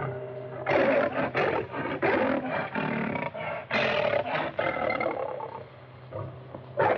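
A lion roaring in a run of loud, rough bursts that die down about five and a half seconds in, with one more short burst at the very end. A steady hum from the old film soundtrack runs underneath.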